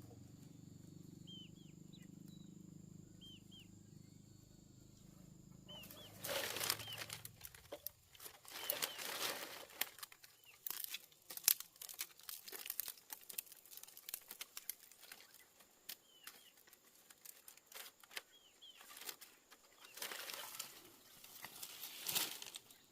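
A low steady hum with a few small high chirps over it stops about six seconds in. It gives way to irregular bursts of rustling and flapping that come and go, the loudest near the middle.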